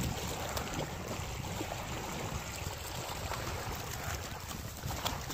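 Steady outdoor noise of wind and lapping water, with a low rumble and a few faint clicks.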